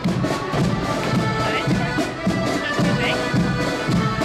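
An accordion marching band playing a march tune, many accordions holding sustained chords and melody over a bass drum and side drums beating a steady march time about twice a second.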